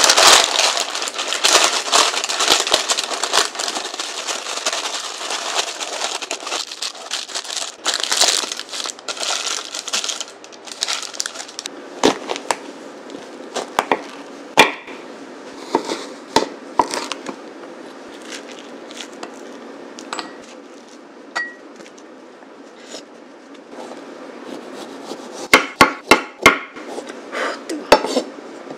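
Parchment paper crinkling and rustling as it is pressed by hand into a round cake pan, for about the first ten seconds. After that, scattered knocks on a wooden cutting board, with a quick run of knife chops through a lightly cooked kabocha squash near the end.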